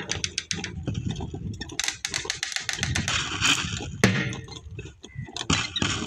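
Two yoked bulls running round a dirt pit: an irregular clatter of hooves and harness, with a few louder knocks.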